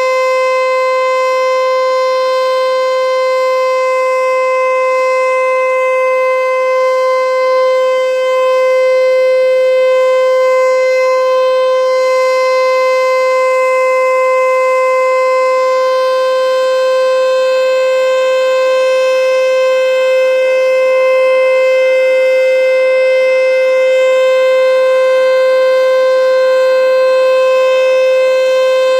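Federal Signal Eclipse 8 electronic outdoor warning siren sounding its steady alert tone for a full-alert test: one loud, unwavering pitch rich in overtones, held throughout.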